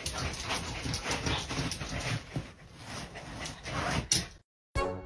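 Puppy making whimpering, whining noises with a toy held in its mouth, cutting off about four seconds in; music starts just after.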